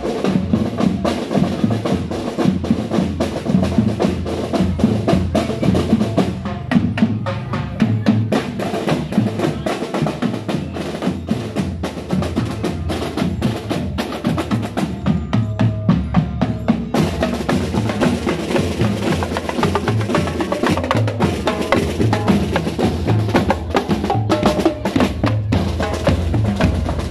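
A marching drum and lyre corps playing a continuous cadence on snare drums and bass drums, with rapid, dense drum strokes throughout.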